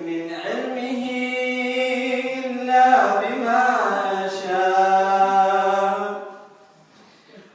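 An imam's melodic Quranic recitation in the salah: a man's voice chanting unaccompanied in long, drawn-out notes, which fades into a pause about six seconds in.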